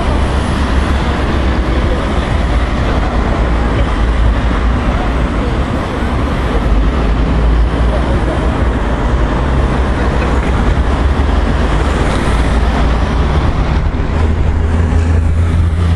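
Cars of a cycling race convoy driving past: engine and tyre noise on the road, with a heavier engine drone growing louder near the end as a truck approaches.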